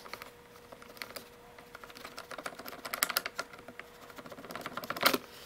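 Small irregular clicks and rattles of the Craftsman C3 impact wrench's metal gear housing and plastic parts being handled as the chuck assembly is worked loose from the motor, with a sharper click and a brief squeak near the end.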